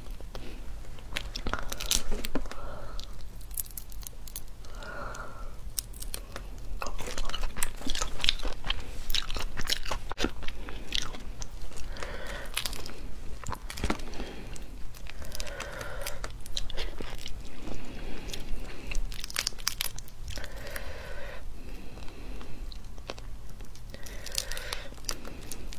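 Shells of sauce-coated cooked prawns cracking and crackling as they are pulled apart and peeled by hand, mixed with close-up chewing and crunching.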